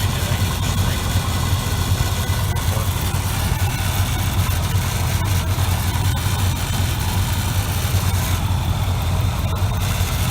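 The 454 cubic-inch big-block V8 of a 1988 Chevy R35 dually idling steadily.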